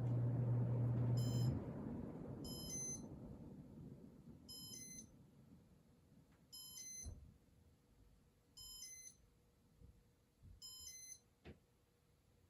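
Casablanca Panama ceiling fan's motor hum cuts off about a second and a half in, and the blades coast down. Then short high electronic beeps from the Comfort Touch control sound six times, about every two seconds, as the test mode cycles.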